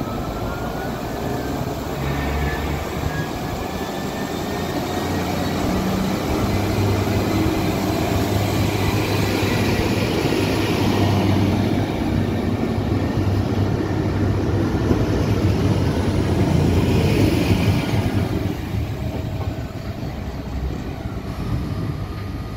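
ATR220 diesel multiple unit pulling out of the station. Its diesel engines run up under power with a rising whine near the start, and the running sound grows louder as the train moves past, then fades over the last few seconds.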